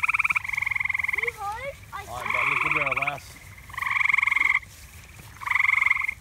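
Frogs calling: a run of rapid trills, each under a second long, repeating with short gaps between them.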